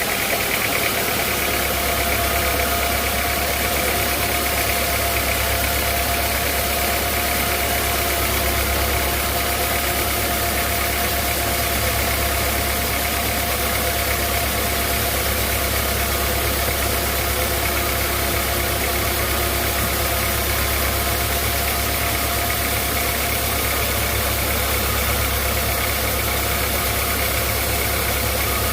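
Sawmill machinery running steadily: a constant engine-like drone with a steady whine above it that holds unchanged throughout.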